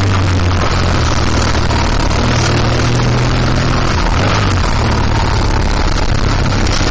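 Motorcycle riding sound: heavy wind noise on the microphone over a BMW R1200GS boxer-twin engine running at road speed, its note shifting about four seconds in as the bike enters a hairpin bend.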